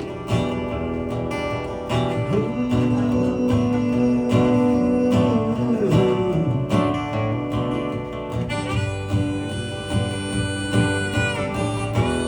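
Live country band playing an instrumental outro, led by acoustic guitar strumming, with long held, bending notes in the middle. A harmonica comes in with high, reedy tones in the last few seconds.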